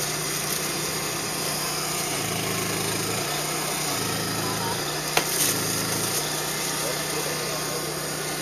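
Portable gas cassette stove burner hissing steadily under a pot, with a low hum that comes and goes and a single sharp click about five seconds in.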